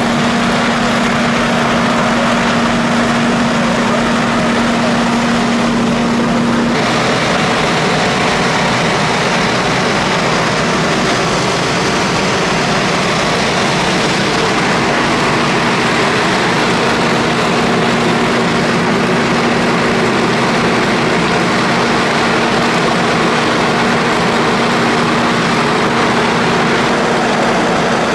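Engine-driven machinery running steadily, a loud even drone with a constant hum. The hum drops away about seven seconds in, when the hiss gets brighter, and returns about halfway through.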